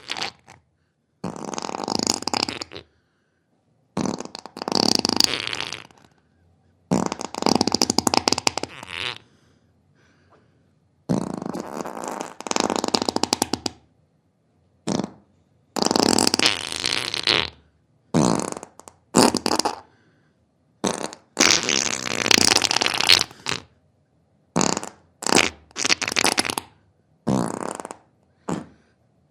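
A string of about twenty fart sounds one after another, with silent gaps between them. The first few are long, about two seconds each, and the later ones are shorter and come faster.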